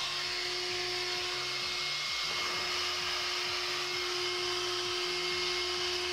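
Wet/dry shop vacuum running at full speed with a steady whine, powered through a 3000-watt inverter from a truck's battery bank.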